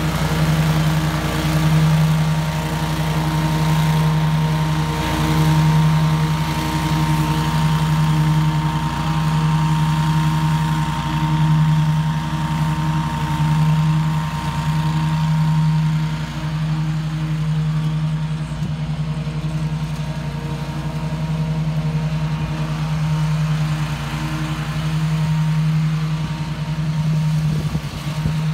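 Grasshopper 524V zero-turn mower running steadily while mowing, a low engine hum that swells and fades every couple of seconds.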